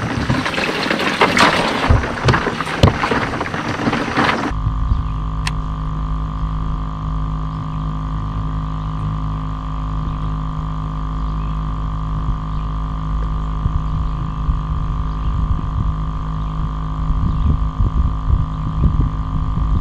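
A loud rushing, rustling noise with a few sharp knocks for about four seconds, which cuts off suddenly. Then comes the steady hum of a bass boat's electric trolling motor, a fixed whine over a low drone, holding the boat along the bank.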